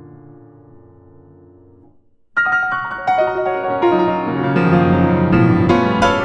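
Solo grand piano: a held chord fades away and is cut off about two seconds in, then after a brief pause a loud run of quick, bright notes starts and carries on.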